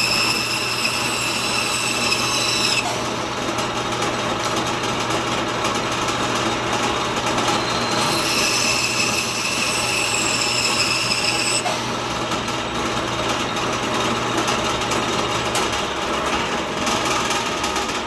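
Band saw running and cutting walnut, with a steady motor hum under the noise of the cut. High-pitched whining comes in twice, for about three seconds each time, while the blade is working through the wood.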